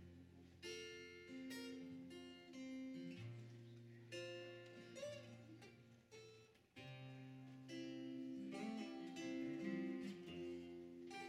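Acoustic guitars strumming and picking an instrumental introduction, with chords ringing out and changing every second or two and a brief dip just past halfway.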